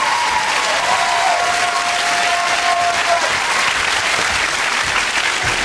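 Studio audience applauding steadily, with a faint held tone over it for the first three seconds or so.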